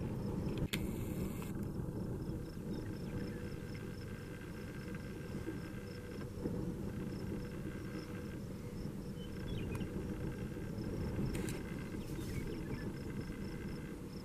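Wind rumbling on the microphone, with an insect chirping steadily at about four chirps a second. A brief click comes near the start, and a couple more near the end.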